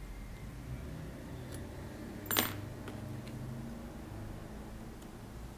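Fly-tying tools handled at the vise while the head of a fly is whip-finished: one sharp metallic click a little over two seconds in and a few light ticks, over a steady low hum.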